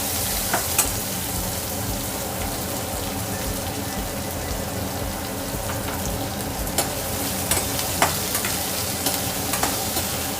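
Onion, garlic, ginger and spices frying in hot oil in a pan, sizzling steadily as they are stir-sautéed, with scattered clicks of the spatula against the pan.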